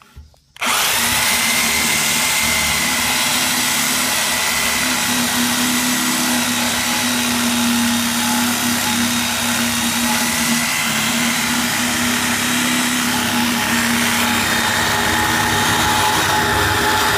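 Shop vacuum switched on about half a second in, then running steadily with a constant motor whine as its hose is worked around inside a cut-open metal tank.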